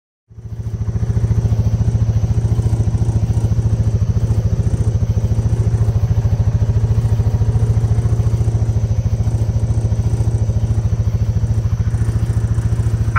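Engine of a small off-road utility vehicle (side-by-side) running steadily and loudly, with a rapid even pulsing and a steady low hum, heard from the driver's seat. It cuts in suddenly just after the start.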